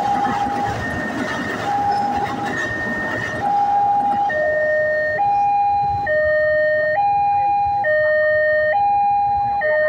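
Railroad crossing warning loudspeaker sounding its two-tone alarm, alternating between a higher and a lower tone about once a second. A passing passenger train's rumble on the rails runs under it for the first four seconds, then drops away, leaving the alarm alone.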